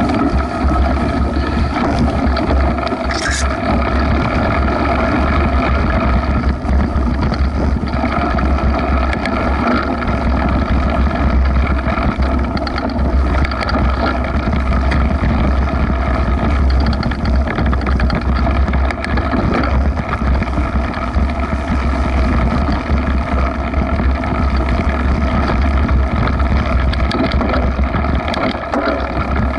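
Mountain bike ride recorded on an action camera: a steady low rumble of wind buffeting the microphone, mixed with the rush of tyres rolling through long grass and the rattle of the moving bike.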